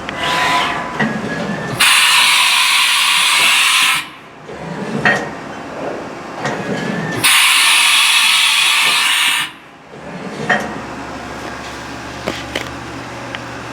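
Haas VF1 CNC mill's 20-tool automatic tool changer cycling through a tool change: two loud bursts of air hiss, each about two seconds long, as the spindle unclamps and blows out the tool taper with compressed air, with clunks and mechanical whirring of the carousel and spindle between them. A low steady hum is left near the end.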